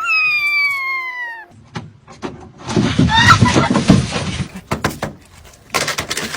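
A cat giving one long meow that falls slowly in pitch. This is followed about three seconds in by a louder, noisy commotion with short cries, and a few sharp knocks near the end.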